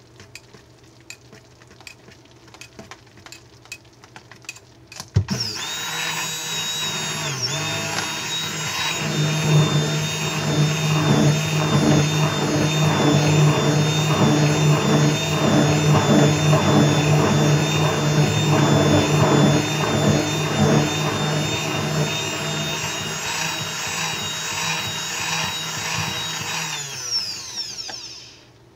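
Stainless immersion (stick) blender running in a bowl of coffee soap batter. It switches on abruptly about five seconds in, hums steadily for some twenty seconds with a brief dip early on, and winds down near the end. Before it starts, faint light clicks of a whisk stirring the batter.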